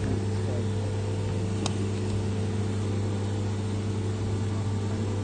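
CNC machine running steadily partway through machining a gear knob: a constant hum, with one short click a little under two seconds in.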